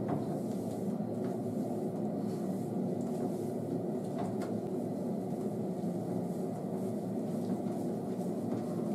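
A steady low rumbling hum with no change in level, with a few faint clicks about a second in and again near the middle.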